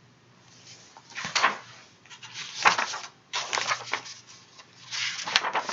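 Paper rustling as the pages of a picture book are handled and turned: four short rustles, about a second apart, the last near the end the longest.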